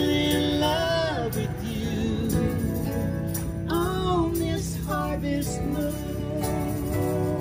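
Live acoustic music: an acoustic guitar playing chords while a man sings into a microphone, with jingling hand percussion ticking along.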